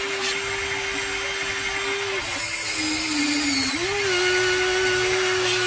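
Electric motors of a Huina RC excavator whining steadily as the boom and arm move. The pitch sags for about a second and a half midway, then rises back and holds.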